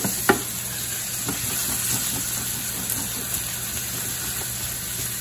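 Chopped onions and garlic sizzling in hot oil in a stainless steel pan, a steady hiss. A wooden spoon knocks against the pan twice at the start.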